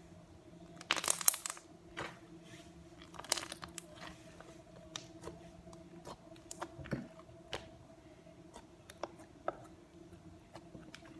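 Thick white slime being squeezed and poked by hand, giving sticky crackles and clicking pops. The loudest crackling comes about a second in and again about three seconds in, with scattered single pops after.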